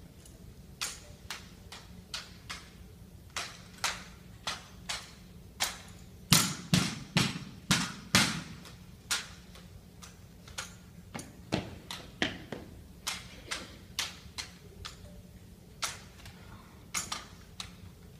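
An armed drill team working drill rifles: a string of sharp, irregular slaps and clacks of hands striking rifle stocks as the rifles are moved between positions, with a run of heavier knocks about six to eight seconds in.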